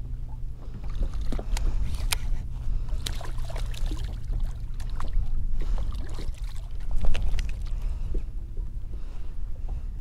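Water slapping and lapping against the plastic hull of a Hobie Pro Angler 12 fishing kayak, over a steady low wind rumble on the microphone, with scattered light clicks and knocks and a louder knock about seven seconds in.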